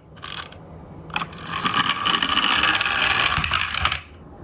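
Toy truck's wind-up gear drive: a short rattle as it is wound by hand and a click, then a loud gear whir and rattle for a little over two seconds as it runs, cutting off suddenly near the end.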